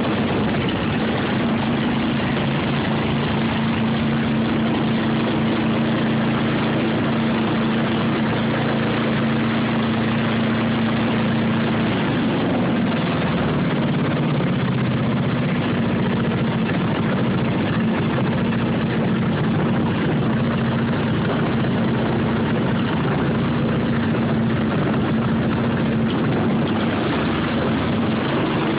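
An 11 hp snowblower engine runs steadily. Its speed wavers briefly about twelve seconds in, then settles back.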